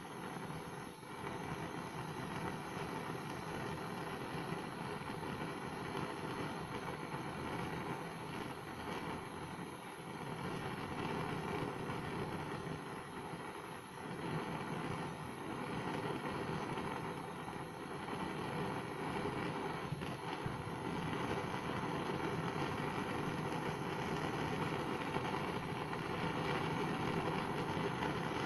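Portable gas-cartridge blowtorch burning with a steady rushing flame as it heats a metal bolt, a little louder after about twenty seconds.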